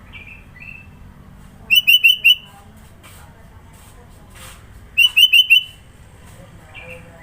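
Sooty-headed bulbul calling: two loud bursts of four quick clear notes, about three seconds apart, with a few softer single notes in between.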